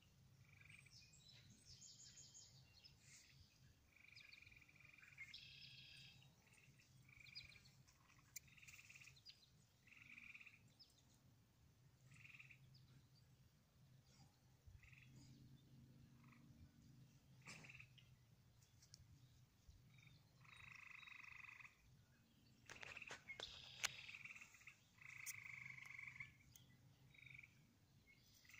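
Faint short animal calls, each about half a second long, repeating irregularly over a steady low hum. A few sharp clicks come about two-thirds of the way through.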